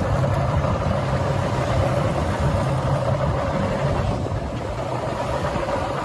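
Engine of an inflatable rescue boat running steadily, a constant hum mixed with wind and water noise.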